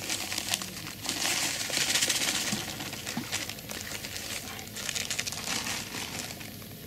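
Dry groundbait pouring from a plastic packet into a plastic bucket, a dense hiss loudest for about two seconds near the start, with the plastic packet crinkling as it is handled.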